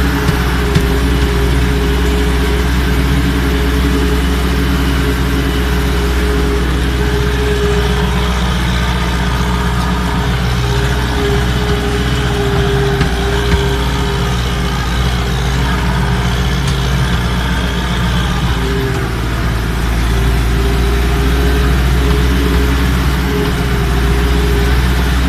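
Ursus 1014 tractor's diesel engine running steadily under load while pulling a cultivator, heard from inside the cab, with a steady whine alongside the engine note.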